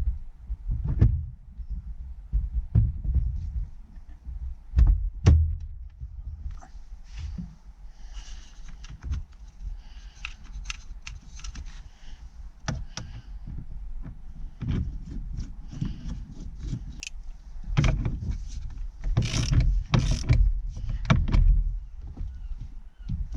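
Irregular clicks, knocks and low thuds of the Audi Coupe's plastic wiper stalk switch being handled and fitted back together after repair.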